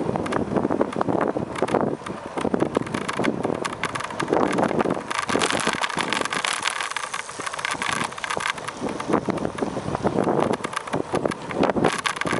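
Wind rushing over the microphone of a bicycle being ridden, with frequent small knocks and rattles from the bike.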